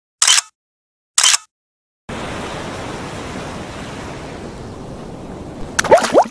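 Two camera-shutter clicks about a second apart. From about two seconds in, ocean surf washes steadily. Near the end, quick rising bubbling blips come in.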